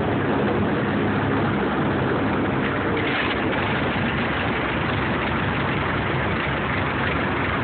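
Airboat engine and air propeller running steadily under way, an even, loud noise with an engine hum underneath.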